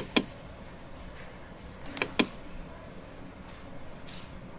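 Short, sharp clicks from a Galaxy Watch 6 Classic, in quick groups of two or three: one group right at the start and another about two seconds in.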